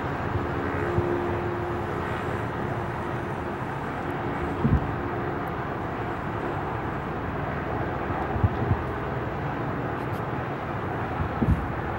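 Distant fireworks booming, about seven miles off: three low, muffled thuds a few seconds apart, arriving long after their flashes. Under them runs a steady hum of distant traffic.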